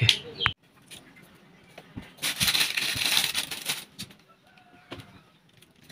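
Plastic snack wrapper crinkling in the hands for about a second and a half, with a few sharp clicks, as a wood stove is being lit. Faint hen clucking near the end.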